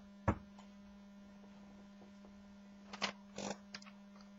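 Steady electrical hum in the recording, with a sharp click about a quarter second in and a few short clicks about three seconds in.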